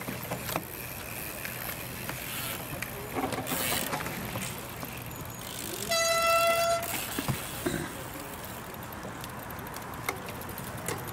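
A single horn blast, one steady note just under a second long, about six seconds in, over steady background noise; a brief rush of noise comes a few seconds before it.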